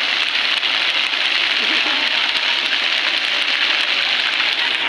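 Fountain water jets arcing and splashing steadily into a stone channel, a continuous hiss of falling water.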